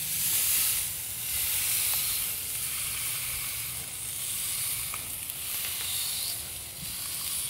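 Thick tomahawk steak sizzling as it sears on grill grates directly over hot charcoal, pressed down onto the grates. The sizzle is a steady hiss that swells and eases.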